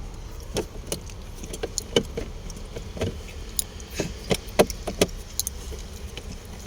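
Irregular clicks, taps and light rattles of tools and plastic parts being handled, over a low steady rumble.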